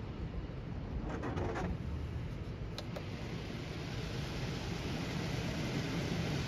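Touchless car wash heard from inside the car's cabin. A steady low hum runs under water running off the glass, with a few faint ticks. Then the high-pressure spray starts hitting the car again, its hiss building toward the end.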